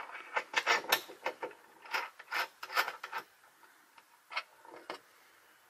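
Irregular clicking, rubbing and scraping of something being handled, a quick run of them through the first three seconds and two more later on.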